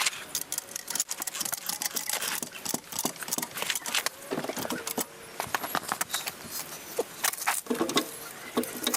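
Irregular clicking and clattering of hand tools and metal parts, many sharp knocks in quick uneven succession.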